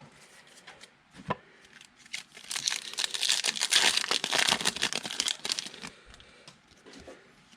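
Crinkling and tearing of a trading-card pack wrapper being opened by hand, a dense crackle lasting about three seconds in the middle, with a few lighter clicks before and after.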